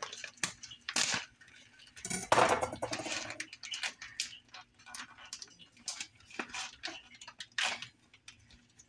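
A plastic pouch of grated Parmesan cheese being cut open with a kitchen knife, then pulled open and crinkled by hand: a run of irregular crinkles, rustles and clicks, the loudest about a second in and again about two seconds in.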